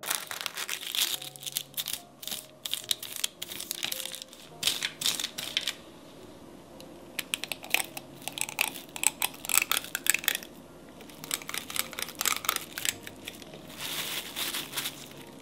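Bouts of dry rustling and crinkling with dense small clicks, from baking ingredients and their packaging being handled and stirred in a bowl, broken by short quieter pauses.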